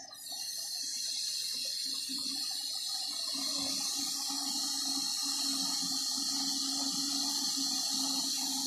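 Steam hissing steadily from a meths-fired Gauge 3 live steam model of a Stanier 8F locomotive. The hiss starts abruptly right at the beginning and then holds steady, with no exhaust beat.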